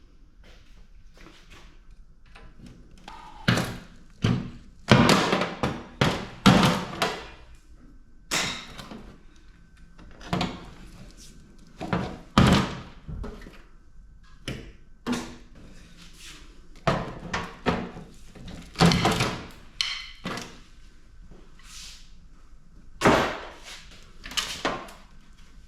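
Irregular clunks and knocks of sheet-metal parts being handled and shifted while a PTAC air-conditioner unit is taken apart, some louder bangs among them.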